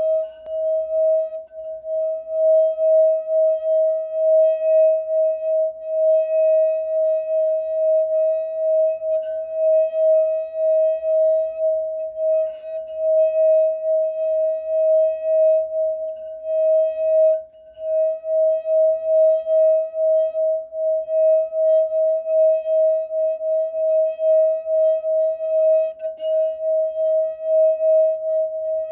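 Crystal goblet wine glass singing as a damp fingertip rubs around its rim: one steady pure tone with faint higher overtones, swelling and fading in a regular pulse. It dips briefly about seventeen seconds in.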